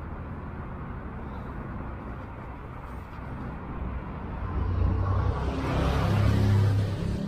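Alstom Citadis X05 tram standing with its doors shut, its equipment humming steadily; about five seconds in it starts to pull away and the traction drive's low hum and running noise grow louder.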